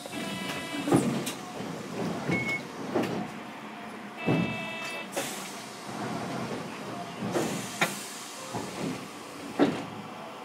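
Inside a Hiroden 3900-series tram standing at a stop, with the sliding doors in use: knocks and clunks, two short electronic chime tones, one near the start and one about four seconds in, and a brief beep, over a steady background hum.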